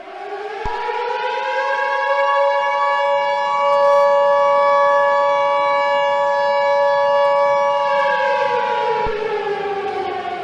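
Civil defense siren winding up, holding a steady pitch, then winding down near the end. From about a second in until about nine seconds in, the Emergency Alert System's two-tone attention signal sounds over it, marking the start of an emergency broadcast.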